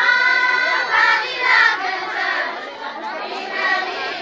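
A group of women singing a Kumaoni jhoda folk song together in chorus, with long held notes, over the chatter of a crowd.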